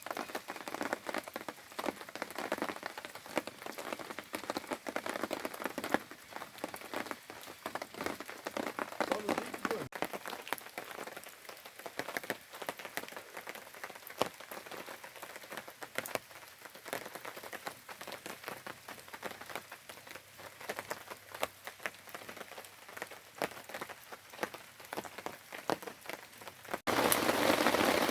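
Steady rain, a dense patter of drops falling on a plastic tarp overhead. About 27 s in it turns abruptly louder into a heavy downpour hiss.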